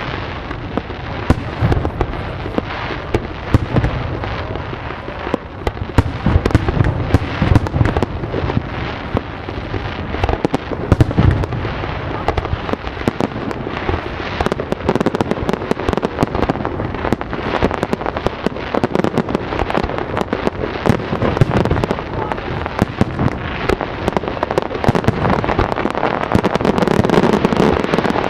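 Fireworks going off: a dense, unbroken run of sharp bangs and crackles with deeper booms among them.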